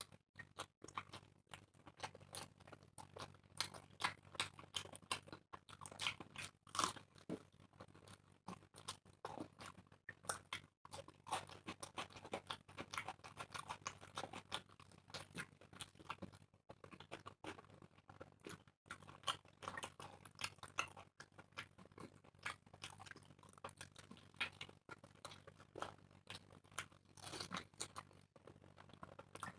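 People chewing and eating puri with egg curry: a continuous, irregular run of close chewing and mouth clicks.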